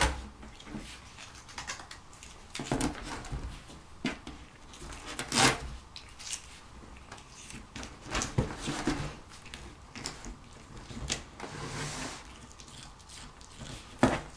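Cats clawing and biting at packing tape on a cardboard box: scattered scratching, rustling and tape tearing off the cardboard, with the loudest tear about five seconds in. Hands press the tape back onto the box.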